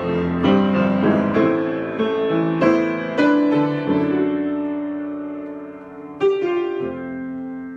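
Solo piano improvisation: notes and chords struck about every half second, then a chord held and left to fade. A new chord sounds a little after six seconds in.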